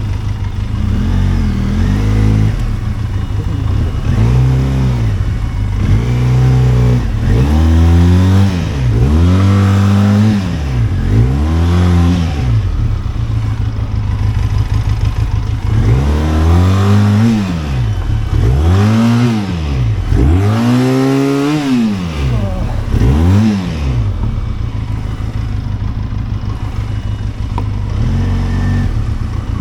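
Benelli TRK 502X's parallel-twin engine revved up and down in repeated throttle bursts, about one a second, in two runs with steadier running between them. It settles to a lower, even run near the end.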